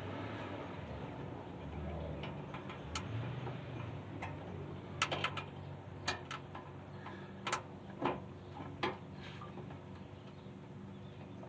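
Irregular clicks and light knocks, several sharper ones close together about halfway through, over a steady low hum.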